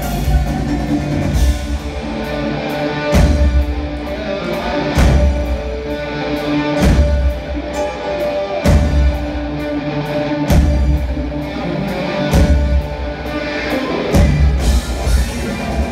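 Live rock band playing: electric guitars over a drum kit, with heavy low accents about every two seconds.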